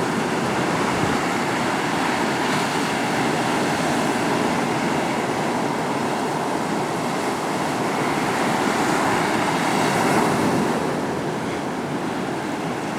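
Small surf waves washing steadily onto the beach, with some wind on the microphone.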